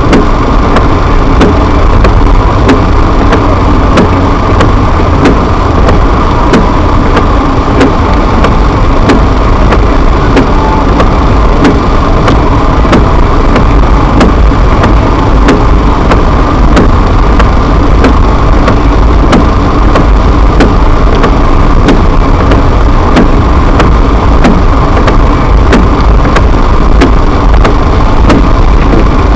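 Loud, steady in-car driving noise of engine and tyres rolling on a snow-covered road, heard through a dashcam microphone. A regular faint clicking, about two a second, runs through it.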